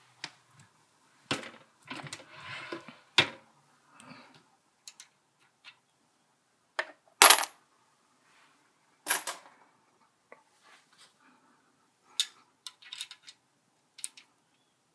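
Scattered sharp metallic clicks and clinks, about half a dozen in all, as 7.62x25mm brass cases are handled and set into the shell holder of a single-stage reloading press for sizing. The loudest clink comes about seven seconds in.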